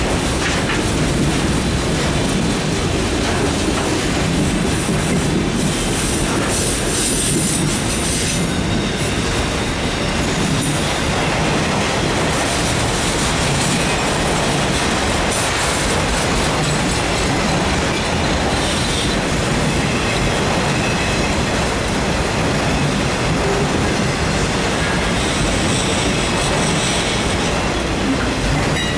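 Autorack freight cars rolling past close by: a steady rumble of steel wheels on rail with wheel clatter, and a high-pitched wheel squeal now and then.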